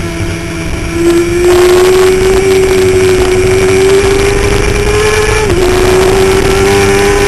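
Kawasaki ZX10's inline-four engine at high revs, heard from an onboard camera with wind rush. It is softer for about the first second, comes back louder, and its pitch climbs slowly, with a brief dip in pitch about five and a half seconds in.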